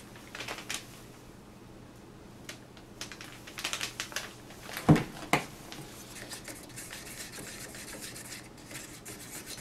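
Light clicks and taps from handling a plastic jug of Floetrol over paper paint cups, with one sharp knock about five seconds in.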